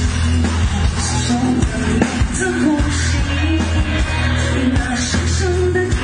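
Live rock band playing a song with a singer, drums and a steady bass line, heard from the audience in a concert hall.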